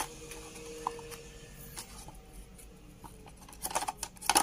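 Hands handling accessories in a phone box's cardboard insert: light rustling and a small click as a coiled white cable is picked at in the tray, then a louder cluster of clicks and rustles near the end.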